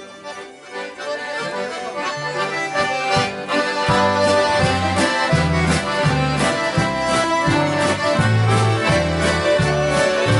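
A large ensemble of accordions playing a traditional dance tune together, backed by guitars. It starts softly, and the sound fills out over the first few seconds as a steady pulsing bass line comes in.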